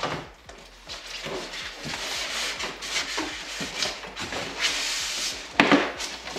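Rigid foam packaging scraping and rubbing against a cardboard box as it is worked out, with rustling handling throughout and one louder, sharper scrape about five and a half seconds in.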